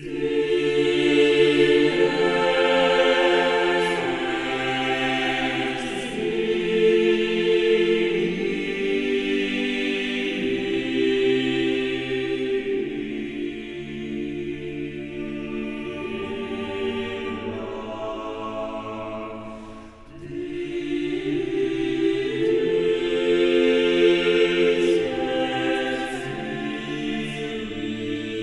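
A choir singing slow, held chords, with a short break about twenty seconds in.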